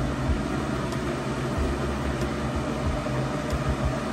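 Electric fan running: a steady whooshing hiss over a low hum.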